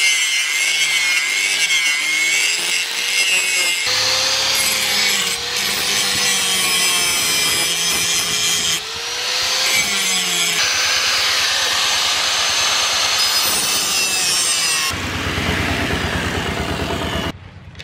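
Electric angle grinder with an abrasive disc grinding the edge of a steel knife blade, its whine wavering in pitch as the disc is pressed on and eased off. The sound falls away sharply near the end.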